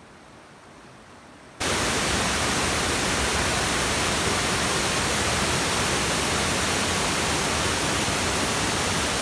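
Mountain stream water rushing down from a pool, a loud steady hiss of white water that cuts in abruptly about a second and a half in.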